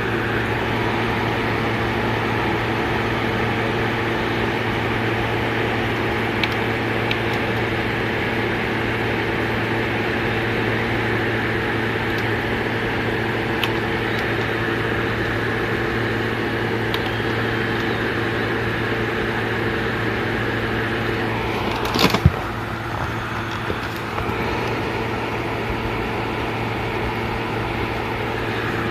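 Victor HR-S10 portable video cassette recorder's tape mechanism running with a steady motor hum. A quick cluster of mechanical clicks comes about 22 seconds in, after which the hum is a little quieter.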